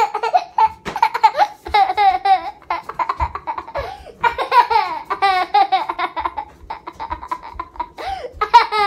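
A young child laughing hard: high-pitched belly laughter in runs of quick bursts, with brief pauses for breath.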